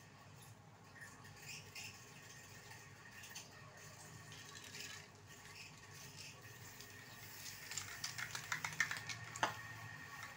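Aerosol spray-paint can being handled and shaken: a quick run of rattling clicks starting about two-thirds of the way in, ending with a sharper knock.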